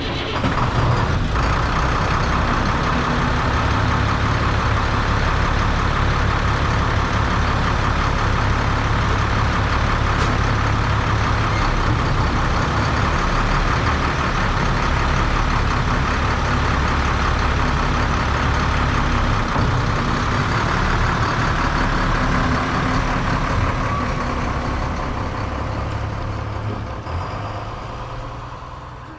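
Heavy diesel vehicle engine running steadily, then fading out over the last few seconds.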